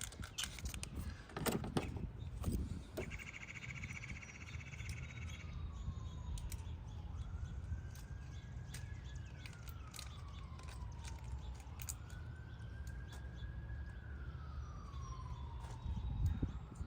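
A faint siren wailing, its pitch rising and then falling slowly about every four to five seconds. A few sharp clicks and knocks come in the first couple of seconds.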